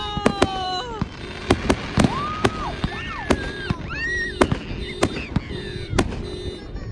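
Aerial fireworks going off: a rapid, irregular string of sharp bangs and crackles from bursting shells.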